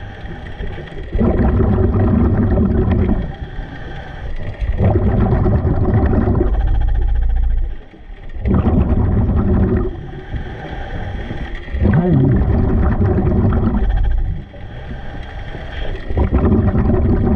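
Scuba diver breathing through a regulator underwater. Each exhale is a loud burble of bubbles lasting about two seconds, alternating with quieter inhales through the regulator, a breath every three to four seconds.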